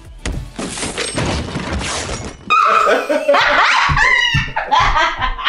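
About two seconds of dense, noisy sound from an inserted film clip, then a man and woman shrieking and laughing excitedly as they celebrate.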